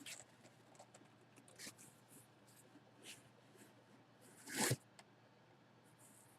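Faint rustling and small clicks of a sealed jersey package being opened by hand, with one short, louder rustle about four and a half seconds in.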